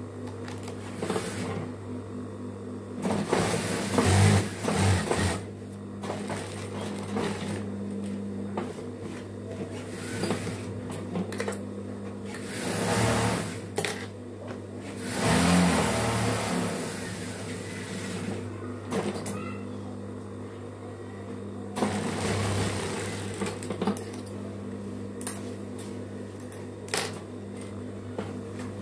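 Industrial lockstitch sewing machine stitching a garment: its motor hums steadily, with several short bursts of fast stitching as the fabric is fed through.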